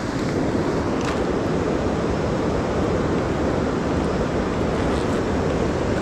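Seti River rushing steadily through its gorge, a constant roar of fast water; the river is running high.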